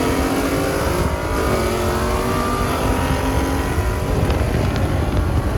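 A high-performance car's engine accelerating hard, its pitch climbing over the first few seconds and then fading out, over a steady low rumble.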